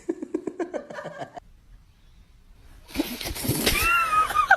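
A person laughing in quick short bursts; after a brief pause, a loud rush of noise with a high, wavering yell, like a startled scream.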